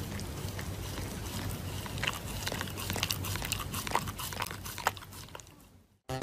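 A dog chewing something crunchy: irregular sharp crunches over a steady background hiss, fading out near the end.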